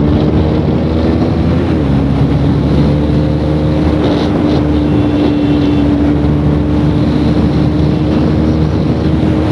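KTM RC 390's single-cylinder engine running hard at highway speed, around 110 km/h, its note holding nearly steady with a brief dip about two seconds in. Wind rushes over the microphone.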